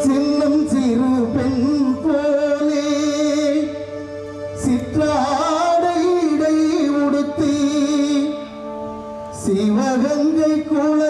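A man sings a wavering melody into a handheld microphone, amplified through a PA, over held keyboard chords. The voice pauses briefly twice.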